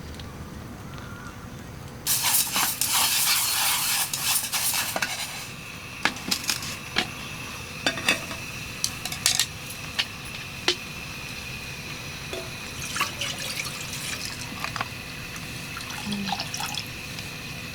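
Water pouring or splashing for about three seconds, then scattered clinks and taps of camp cookware and utensils over a steady hiss.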